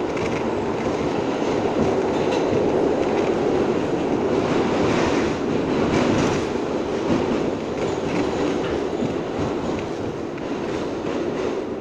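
R62 subway car of a 3 express train running through a tunnel, heard from inside the car: steady running noise of steel wheels on rail with clattering over the rail joints.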